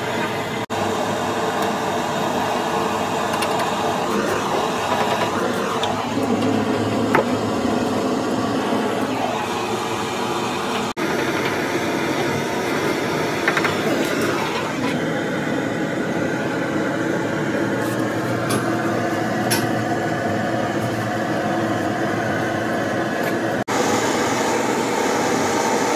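Steady hiss of a gas torch heating and soldering a radiator's tank seams, over a steady mechanical hum, with a few light metal clinks. The sound drops out briefly three times.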